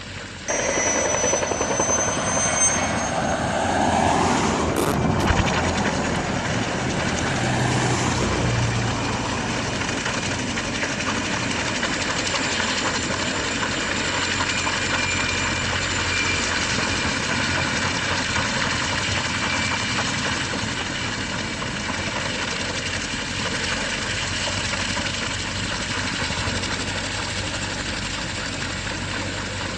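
Helicopter running steadily, a dense rotor and engine noise. A whine swells and fades around four seconds in, with one sharp knock just after it.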